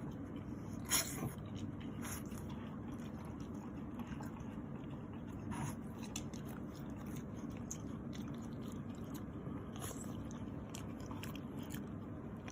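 French bulldog eating cake, with scattered short, wet clicks and smacks of chewing and licking over a steady low hum; the loudest smack comes about a second in.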